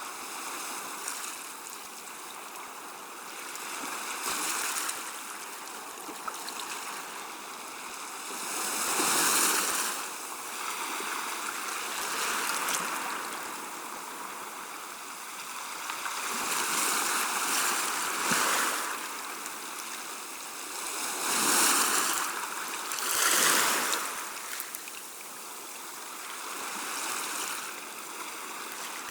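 Gentle sea waves washing on the shore, rising and falling in slow swells every few seconds. A few louder washes come about a third of the way in and again in the later part.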